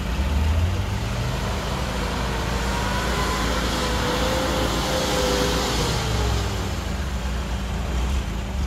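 Engine of a Lada Niva off-roader running, its revs rising about half a second in and again around six seconds, with a faint whine that rises and falls in between.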